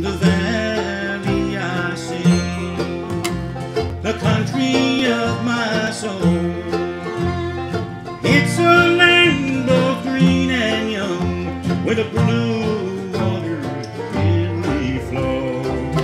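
Live bluegrass band playing: fiddle, banjo, mandolin, acoustic guitar and upright bass, with quick plucked notes over a steady bass line.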